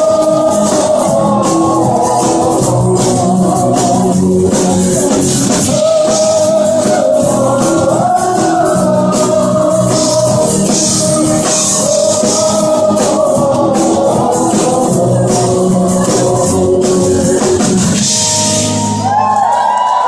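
Live pop-rock band playing a Polish-language song, with lead vocal over electric guitar and drums, recorded from within the audience. The song ends on a held chord about nineteen seconds in, and the crowd starts to cheer and whistle.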